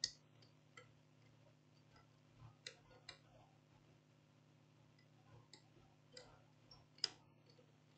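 Near silence: room tone with a few faint, scattered clicks, the clearest about seven seconds in.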